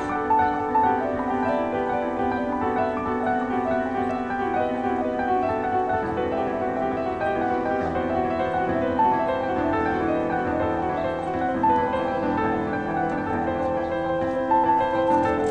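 Background music led by piano, a continuous flowing melody over sustained chords.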